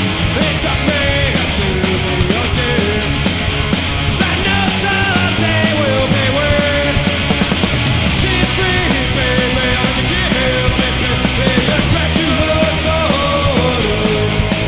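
Punk rock band recording playing loud: distorted electric guitars, bass and drums keeping a steady beat, with a melodic line over the top.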